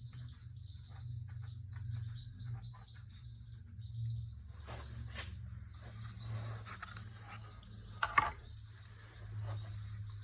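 Steady high insect chirring with a low hum underneath, scattered light clicks, and one sharp knock about eight seconds in.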